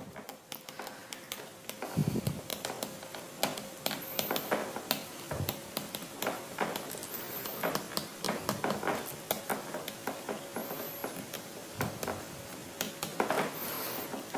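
Writing: many faint, irregular clicks and light scratches of a pen or stylus moving on a writing surface, several a second, over a faint steady hum.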